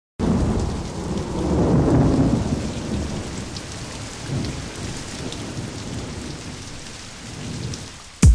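The intro of a vinyl record playing: a rumbling, rain-and-thunder-like noise that starts suddenly, swells about two seconds in and slowly fades, before an electronic drum beat starts right at the end.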